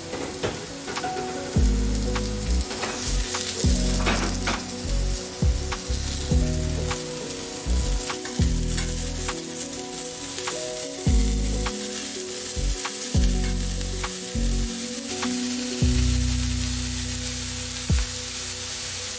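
King oyster mushroom pieces sizzling steadily in olive oil in a hot frying pan as they sear to a golden brown, with scattered sharp clicks of a metal spoon turning them against the pan.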